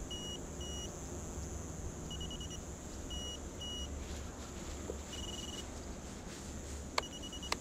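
Short, high electronic beeps from a radio-control drone setup's buzzer while the motors are being armed: single beeps and pairs, one longer beep about five seconds in, and a quick run of beeps at the end. Two sharp clicks come near the end.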